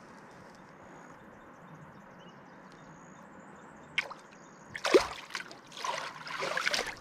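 Water splashing and sloshing: a faint steady hiss for about four seconds, then a click and a loud splash about five seconds in, followed by more sloshing near the end.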